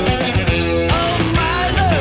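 Rock band playing a steady groove of drums and bass under lead lines that bend and glide in pitch, from a 1990 FM radio broadcast recorded on cassette tape.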